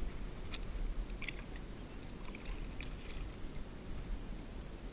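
Water splashing and dripping lightly around a fishing kayak on calm water: a few small sharp ticks in the first three seconds over a low steady rumble.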